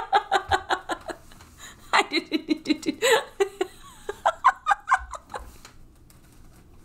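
A woman laughing hard in quick, repeated bursts, in three runs that fade out after about five seconds.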